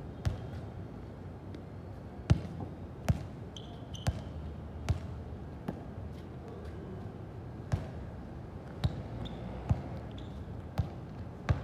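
About eleven sharp thuds at uneven intervals of roughly one second, the loudest about two seconds in, over a steady low background.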